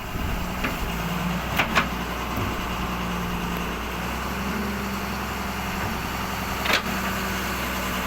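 Doosan excavator's diesel engine running steadily. A few sharp clicks cut through it: two close together about a second and a half in, and one near the end.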